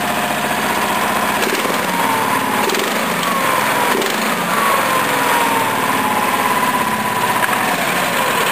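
Briggs & Stratton 14 hp overhead-valve V-twin mower engine running steadily after a start, its note shifting about a second and a half in, with a whine that slides down in pitch several times.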